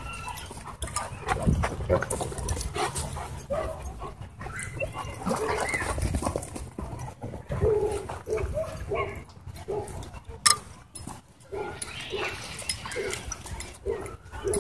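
Several dogs play-fighting and chasing, giving many short, repeated whines and yips over a low rumble. A single sharp click sounds about ten seconds in.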